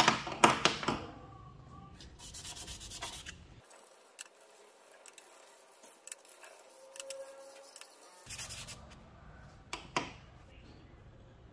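Small flat pieces of PVC pipe rubbed on sandpaper in quick back-and-forth strokes, scuffing their faces, in two spells. Plastic pieces clack down onto a wooden tabletop at the start and again about ten seconds in.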